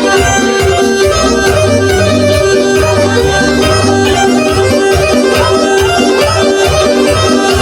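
Band playing traditional folk music with a steady beat under a long held note.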